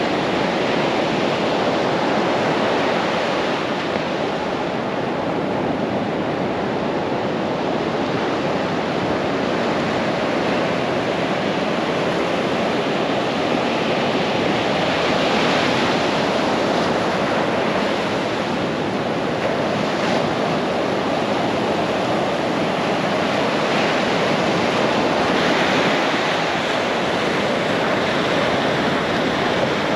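Ocean surf breaking and washing up a sandy beach: a steady rush of water, with louder surges every few seconds as waves crest and wash in.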